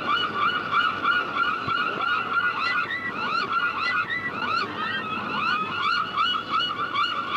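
A flock of seagulls calling together: many short overlapping calls, several a second, forming a dense continuous chorus.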